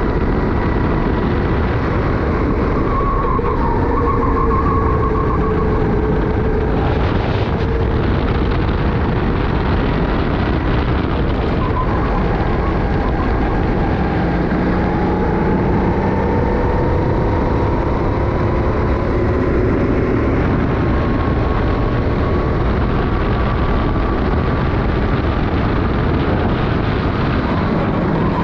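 Racing kart at full race pace heard from the driver's helmet: the Sodi kart's engine climbs and falls in pitch as the driver accelerates out of and lifts for corners, over a constant rush of wind on the chin-mounted camera.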